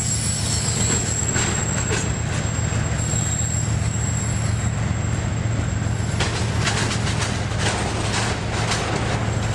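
Train running on the rails with a steady low rumble and a thin high squeal from the wheels. The squeal stops about six seconds in, and a quick run of sharp clatters follows.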